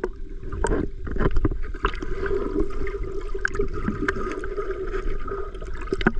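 Muffled underwater sound of a swimming pool picked up by a submerged GoPro's microphone: a steady low rumble of moving water with bubbling and scattered sharp clicks.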